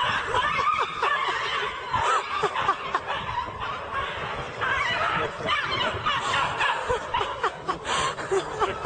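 People laughing and snickering, many short bursts.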